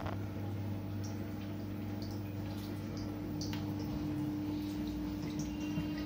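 LG front-loading direct-drive washing machine running mid-cycle: a steady low hum that grows louder about four seconds in, with water dripping and splashing in the drum.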